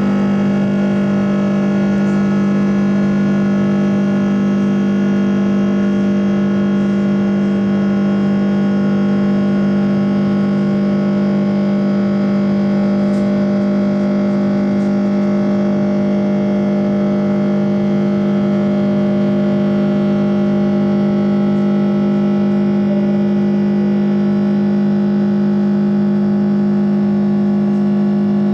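Airbus A330-300's turbofan engines heard from inside the cabin at climb thrust after takeoff: a steady, loud drone with a strong low hum and several steady higher tones over a rushing noise.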